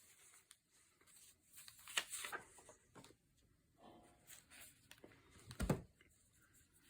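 Paper pages of a handmade junk journal being handled and turned: faint rustling and crinkling, with one soft thump a little before the end as a page or hand lands on the book.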